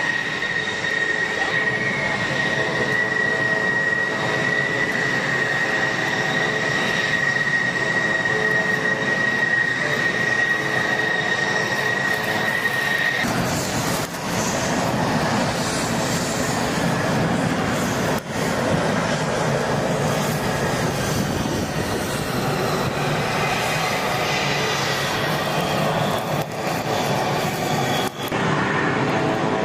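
Engines of taxiing F-16 fighter jets: a steady high turbine whine over a rushing jet noise. About 13 seconds in it changes abruptly to a rougher, broader rushing noise.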